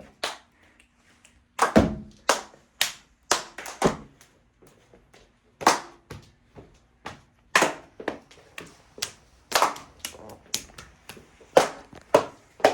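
Body percussion: a group's hand claps and sharp body hits in a rhythmic pattern, about two strokes a second at the busiest, with a few deeper thuds among them.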